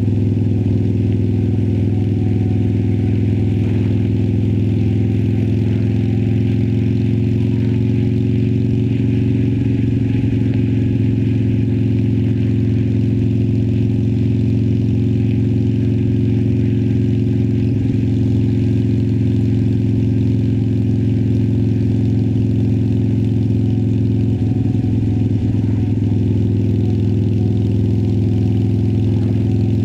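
2018 Harley-Davidson Sportster Iron 1200's air-cooled 1200 Evolution V-twin running through Vance & Hines Twin Slash slip-on mufflers, holding a steady engine speed with no revving up or down.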